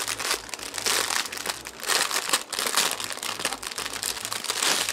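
Plastic wrap and small plastic bags of diamond painting drills crinkling as they are unwrapped and handled.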